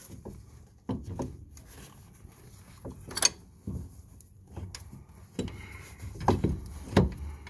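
Irregular clicks and knocks of metal parts as a bolt is worked into the back of a Ford BF Falcon's front brake caliper by hand. The sharpest knocks come about three seconds in and near the end.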